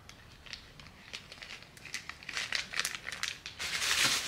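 Packaging crinkling and rustling as it is handled, in scattered small crackles that build to a denser rustle near the end.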